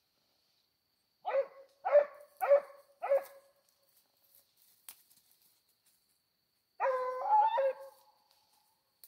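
Hunting dog barking four times in quick succession, then giving one longer bay with a wavering pitch near the end, as it works the trail of game at night.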